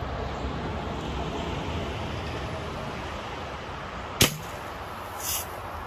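A single sharp shot from a Daisy Red Ryder BB gun about four seconds in, over steady outdoor background noise, followed about a second later by a short, faint hiss.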